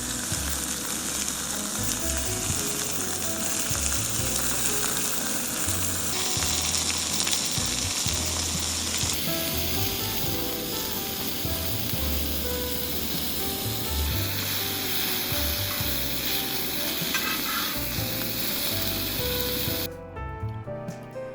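Food sizzling in a hot frying pan, under background music with a steady bass line. The sizzling changes level at a few cuts and stops shortly before the end, leaving only the music.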